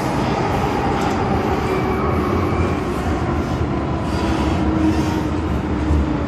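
MTR M-Train running underground: a steady, dense rumble with a faint whine.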